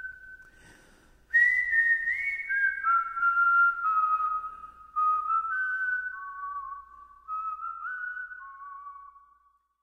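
A whistled melody: one clear line of slow, held notes that step and slide between pitches, coming in strongly a little over a second in and fading out near the end.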